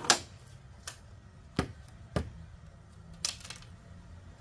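Wooden barn boards knocking against each other and the saw table as they are handled: about five sharp separate knocks, the loudest right at the start and a small cluster about three seconds in.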